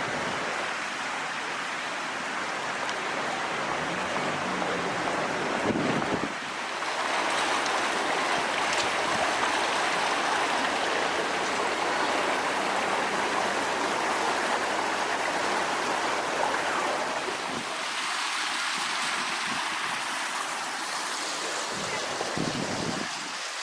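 Floodwater of a swollen river rushing steadily, an even wash of water noise that shifts in character about six seconds in and again near the end.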